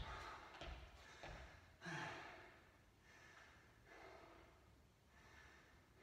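Faint heavy breathing of a man catching his breath between exercises: about four slow out-breaths, the first and loudest a sigh about two seconds in, the rest fading.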